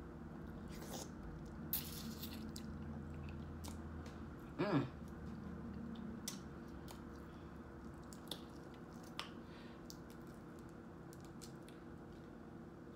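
A person chewing and biting into seasoned shrimp, with wet squishing mouth sounds and scattered small clicks and smacks. A brief vocal sound a little before halfway is the loudest moment.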